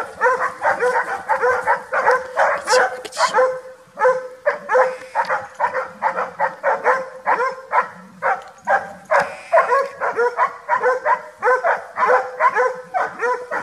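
Hunting dogs barking in a rapid, unbroken run of about two or three barks a second, with a brief pause just before four seconds in.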